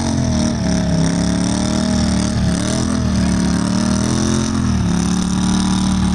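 Motorboat engine running under way, its pitch rising and falling gently with the throttle and dropping off near the end.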